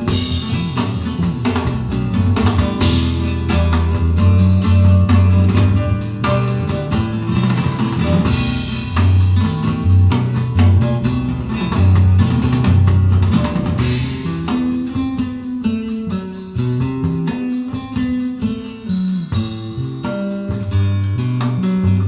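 Guitar-led music with bass and some drums, played back through Dali Ikon 5 mk2 loudspeakers and picked up in the room. The busiest passage gives way to a sparser stretch about two-thirds of the way in.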